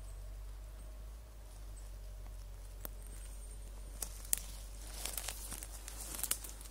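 Footsteps on the forest floor: twigs and dry leaf litter crackling and snapping underfoot. The sharp clicks are scattered, mostly in the second half.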